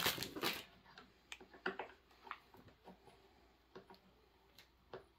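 Irregular clicks and light knocks from hands working the plastic parts of a chainsaw, with a cluster of louder knocks right at the start and single sharp ticks after it.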